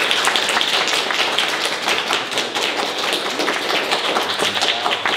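Applause: a group of people clapping, dense and steady.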